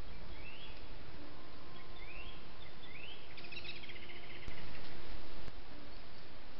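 Steady hiss from the trail camera's microphone, with three short rising bird chirps in the first half and a quick trill just past the middle. About four and a half seconds in, the hiss steps up louder for about a second.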